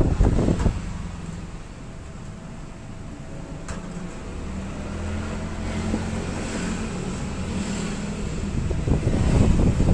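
A motor vehicle engine running steadily in the background as a low hum that slowly grows louder, with rough rumbling noise on the microphone in the first second and again near the end.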